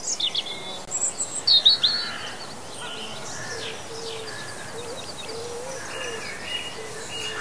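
Birdsong: several birds chirping with quick high calls, busiest in the first two seconds, while a lower wavering call repeats under them.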